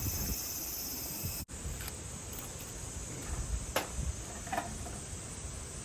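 Summer insect chorus: a steady high-pitched buzzing of insects that breaks off for an instant about a second and a half in, with a couple of faint knocks later.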